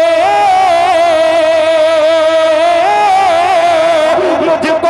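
A man singing one long drawn-out note of a nazm line into a microphone through a loud PA, the pitch wavering and stepping up and back down twice. About four seconds in the held note breaks into shorter sung syllables.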